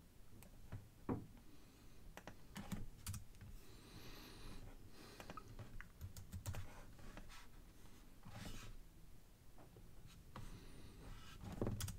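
Faint, scattered clicks and taps of a computer mouse and keyboard, with a brief rustle about four seconds in.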